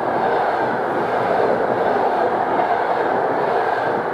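Passenger coaches of a train passing close by at speed: a loud, steady rush of wheels on rail with no pauses.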